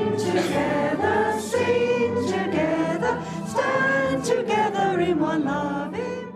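Congregation singing together, mostly women's voices, over a steady low held note.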